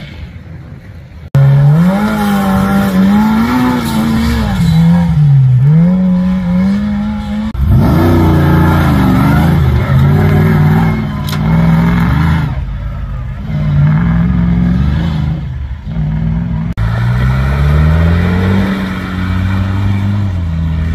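Comp safari off-road racing buggies' engines revving hard as they power across loose sand, the pitch climbing and dropping again and again with throttle and gear changes. The sound switches abruptly a few times from one car to another.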